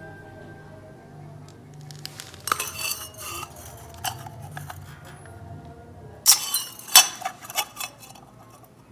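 Cut pieces of steel pipe clinking and scraping against each other as they are handled, in two clusters of sharp metallic knocks, the second, about six seconds in, the loudest.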